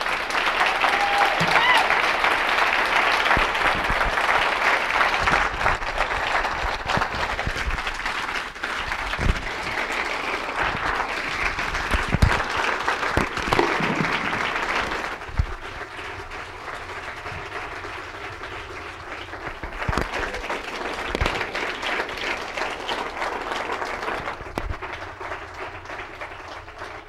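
Audience applauding, loud and full for the first half, then dropping to a softer, thinner level about halfway through.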